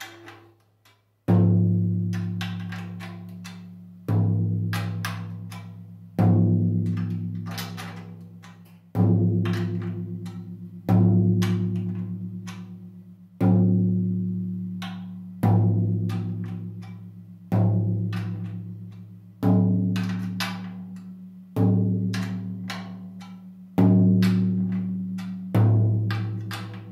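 13-inch tom tom being fine-tuned toward A2, struck with a drumstick about every two seconds, twelve hits in all. Each hit rings out as a low sustained drum tone that fades before the next, with faint ticks between the hits.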